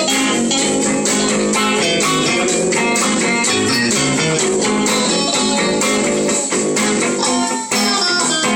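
Guitars jamming blues-rock, with quick runs of plucked notes over strummed chords.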